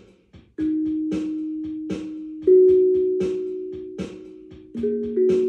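Feeltone Zenko steel tongue drum struck with rubber-tipped mallets: single notes that ring on and fade slowly, a new one every second or two, the loudest about two and a half seconds in. Under it runs an even beat of quick percussive ticks.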